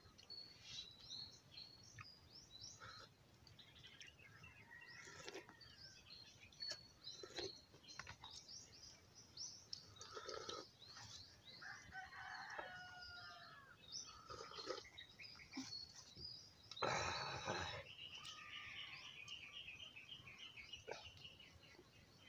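Faint birdsong: small birds chirping and calling in short, high notes, with a run of quick repeated notes near the end. One louder, brief sound stands out about three-quarters of the way through.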